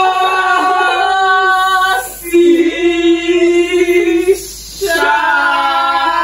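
Women's voices singing together, unaccompanied, in three long held phrases with short breaths between them, typical of a group singing a national anthem.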